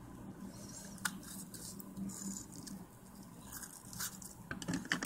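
Knife cutting into an apple: small, soft crunching and squishing sounds of the blade going through the fruit, with a sharp click about a second in. Right at the end, a loud clatter of cutlery against dishes begins.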